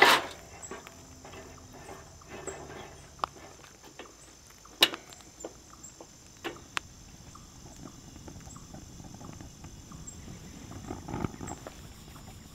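A Mr. Heater Buddy portable propane heater is set down on gravel with a knock. Then come a few sharp separate clicks as its control knob and igniter are worked to light it, and soft rustling near the end.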